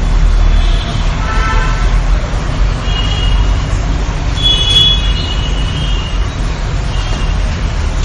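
Steady low rumble of vehicle noise with a few short high-pitched toots.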